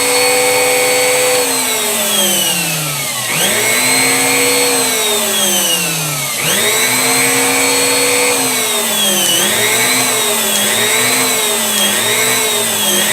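Bosch router's electric motor being switched on and off to test a switch freshly repaired by cleaning its corroded contacts. It runs at full speed with a steady whine, coasts down with a falling pitch and restarts twice, then in the last few seconds is flicked off and on quickly, the whine dipping and recovering about every three-quarters of a second.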